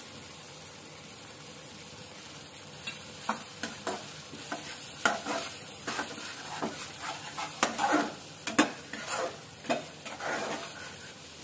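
Thick masala with butter just added sizzling in oil in a kadai, while a metal slotted spatula stirs and scrapes it against the pan. The sizzle runs alone at first; the scraping strokes start about three seconds in and come irregularly.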